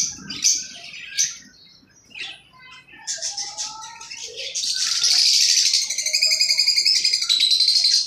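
Male parblue lovebird calling for its mate, which has just died. It gives a few sharp, shrill calls in the first second or so, then from about halfway a loud, fast, unbroken run of high chattering chirps.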